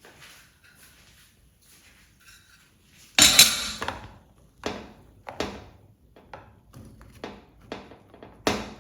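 Kitchen pots and utensils clattering: faint handling at first, one loud clank about three seconds in, then a string of sharper knocks and clinks about every half second.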